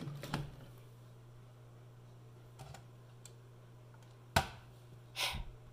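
Scattered small clicks and knocks of hands handling wires and a device, with one sharp click about four and a half seconds in, over a low steady hum.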